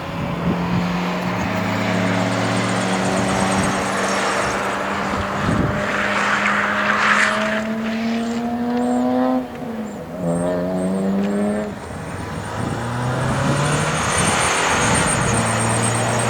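Car engine pulling under acceleration, its pitch climbing slowly, with an upshift about nine and a half seconds in, after which it climbs again. A brief rushing noise comes around six to seven seconds in.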